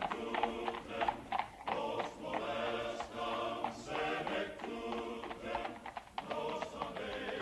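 A chorus singing a slow song, with a carriage horse's hooves clip-clopping beneath it.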